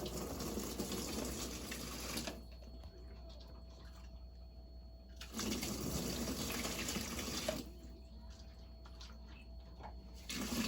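Water poured from a scoop in pours of two to three seconds with pauses between. One pour starts the clip, a second comes about five seconds in, and a third begins near the end.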